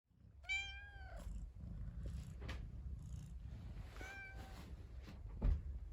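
A domestic cat meowing twice: a longer, arching meow about half a second in and a shorter one about four seconds in, over a steady low rumble, with a thump near the end.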